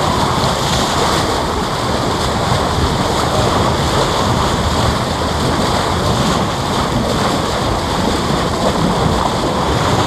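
Steady rush of white water churned along the hull of a moving boat, mixed with wind buffeting the microphone.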